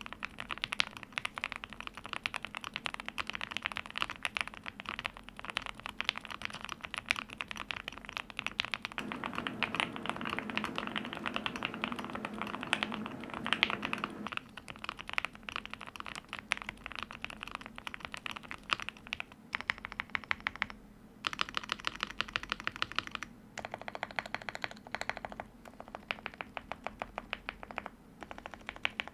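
Typing on an Angry Miao Relic 80 leaf-spring-mounted TKL keyboard fitted with lubed and filmed C3 Banana Split linear switches and GMK keycaps: fast, continuous keystrokes, turning to more separate, evenly spaced key presses near the end.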